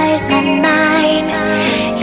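A pop song playing: a sung vocal line held on long notes over a backing track, with the lyric "I've only got you inside my mind" passing into "You know".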